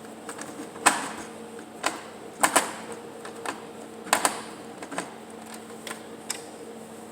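Irregular sharp clicks and metallic knocks, some in quick pairs, as a screwdriver and heatsink are handled and set against a computer's metal chassis, over a steady low hum.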